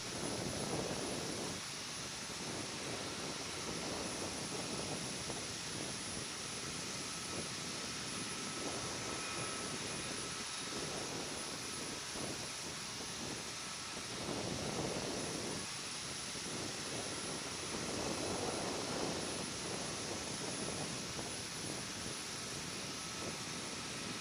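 Distant jet aircraft noise: a steady rushing sound that swells gently a few times, with a faint high whine over it.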